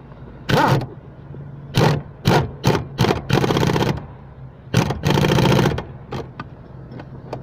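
Cordless power driver run in short bursts, a few quick squeezes and then two longer runs of about a second each, driving in the screws that hold a clutch master cylinder to the pedal box.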